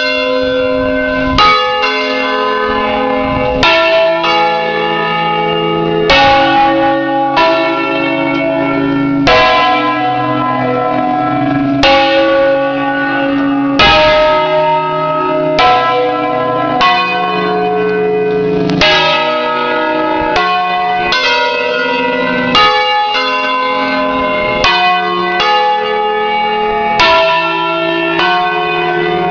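Eight swinging church bells of an Ambrosian-system ring tuned in C, struck one after another in a solemn full peal, about one stroke a second. Each stroke keeps ringing under the next. The sound is loud and close, heard from inside the bell frame.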